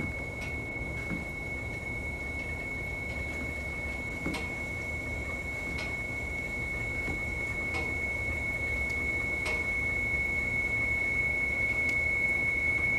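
A single sustained high tone from the film's score, held over a low rumble and slowly growing louder, with a few faint clicks.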